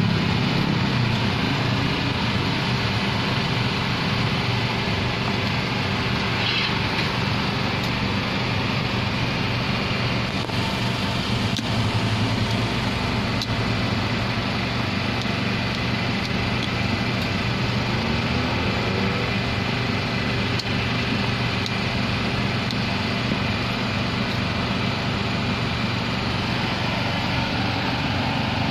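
Steady, loud mechanical drone with a low hum, with a few faint clicks.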